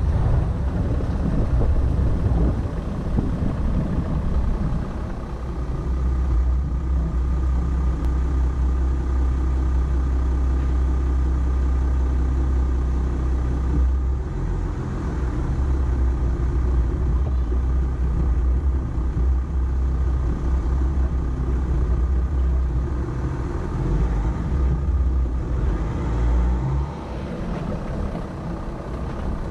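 Volkswagen Amarok pickup's engine running steadily as it drives, a low drone that drops a little near the end.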